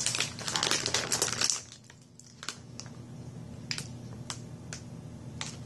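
Plastic snack bag crinkling loudly as it is pulled open by hand, then a few scattered light crinkles as the open bag is handled.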